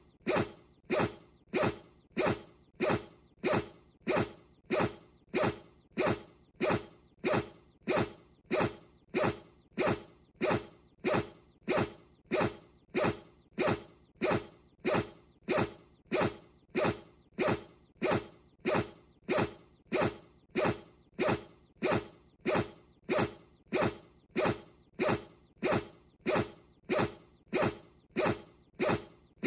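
Bichon Frise dog sneezing over and over in an even rhythm, about three short sharp sneezes every two seconds.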